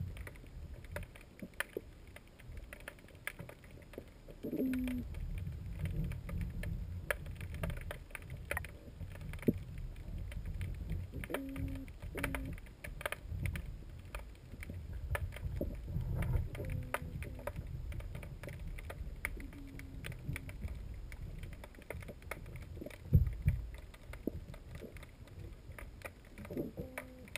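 Water sloshing and knocking around a small boat, with scattered clicks and bumps of handling and a few short low hums. One heavy thump comes about three-quarters of the way through.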